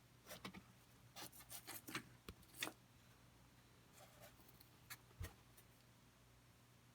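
Faint, brief rubbing and scraping with a few light clicks and taps, in two short clusters: small model railroad scenery pieces being handled and pulled up by hand.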